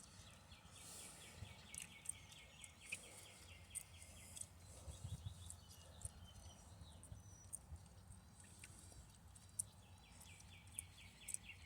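Near silence, with a faint, rapid, evenly pulsed chirping trill in the background at the start and again near the end, and scattered faint clicks.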